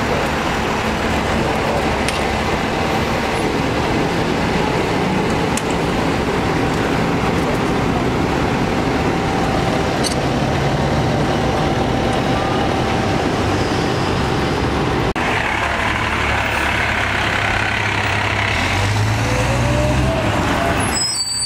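Diesel engines of fire trucks running at idle, a steady loud rumble. Near the end one truck's engine gets louder as it pulls away.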